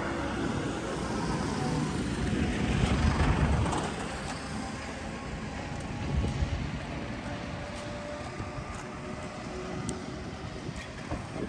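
Road traffic: a vehicle passes on the road, loudest about three seconds in, then fades into a steady traffic hum.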